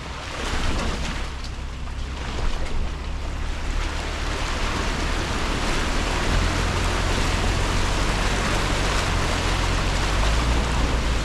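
Nissan Patrol 4WD driving along a rough dirt track: a low steady engine drone under a constant rushing hiss of tyres and track noise, a little louder in the second half.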